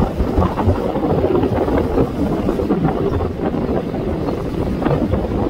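Wind buffeting the microphone: a loud, steady rush with uneven gusts, deepest in the low end.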